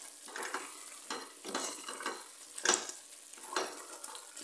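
Wooden spoon stirring a thick goat-meat stew in a stainless steel pot, scraping against the pot in a run of irregular strokes, the sharpest near the middle, while the stew sizzles underneath.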